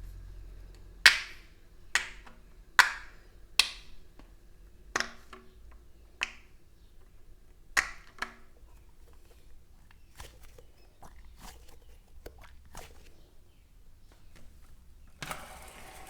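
Fidget toys being handled: a series of eight sharp taps, loud and irregularly spaced, then a run of softer clicks, and a brief rustle near the end.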